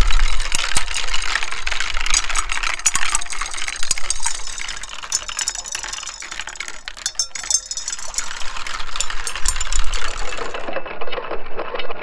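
Water running and splashing down clear plastic marble-run track with a glass marble clicking against the plastic, then a stream of water pouring from a chute into a bowl of water. Low wind gusts rumble on the microphone at times.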